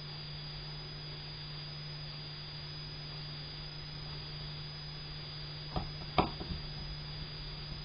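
Steady low hum and faint hiss, then a few light clicks about six seconds in as a tiny screw is set by hand into the corner mounting hole of a laptop LCD panel.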